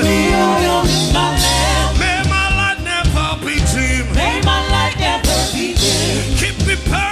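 Live gospel worship music: a singer holding and bending long sung notes over a full band with heavy bass and drums.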